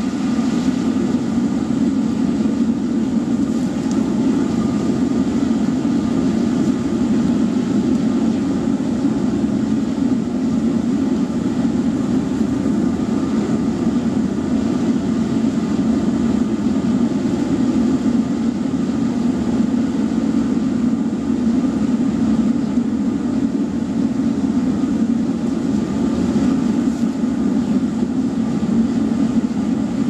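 Waste-oil burner firing a furnace made from an old oil drum, running with a steady, low rushing sound that does not change.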